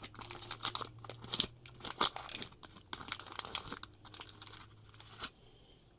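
Waxed-paper trading-card pack crinkling and cards handled and flicked through by hand: a quick run of rustles and sharp clicks that dies away about five seconds in.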